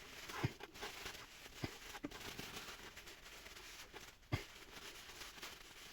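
Faint rubbing of a rag wiping grease off the new CV joint and drive shaft, with a few light knocks of handling, the loudest about four seconds in.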